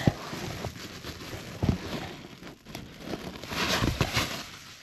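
Crinkly rustling of nylon tent fabric and a foil-like liner being handled right at the microphone, with several soft bumps.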